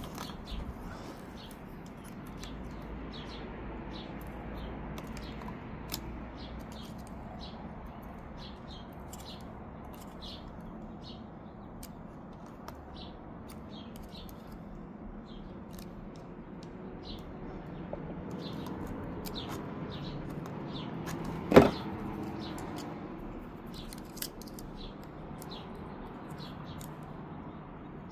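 Small birds chirping on and off over a low steady hum, with one sharp knock about three-quarters of the way through, from hand work pressing a seal into a hydraulic crimper.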